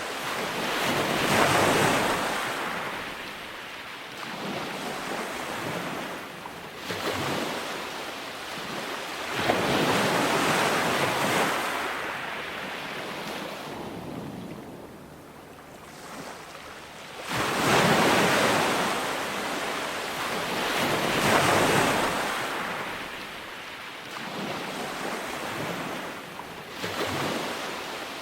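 Ocean surf on a beach: waves break and wash back in uneven surges every several seconds, with a quieter lull about halfway through.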